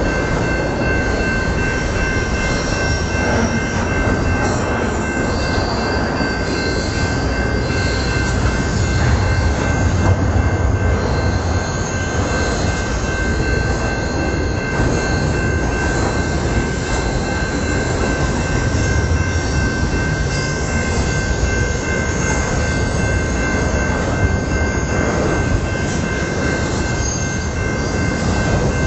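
Double-stacked container train rolling past, its wagons' wheels rumbling steadily over the rails with a steady high-pitched wheel squeal.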